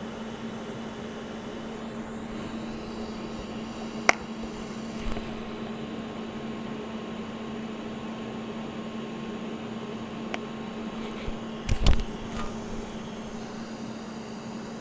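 Steady electrical hum of welding-shop equipment. A sharp metallic click comes about four seconds in, and a short cluster of knocks follows near twelve seconds.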